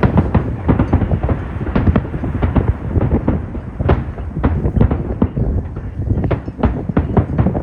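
Fireworks bursting in a dense, rapid barrage: many loud bangs a second, overlapping without a break.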